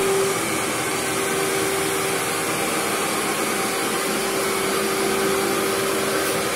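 Vacuum cleaner with a motorized brush roll running steadily as it is pushed slowly over carpet, drawing dust into its canister. A constant hum-like tone sits over the airflow noise.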